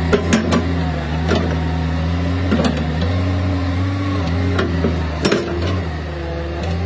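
Hitachi crawler excavator's diesel engine running steadily under the operator's control, its note shifting slightly as the hydraulics work the bucket. Sharp knocks come every second or so, the loudest about five seconds in.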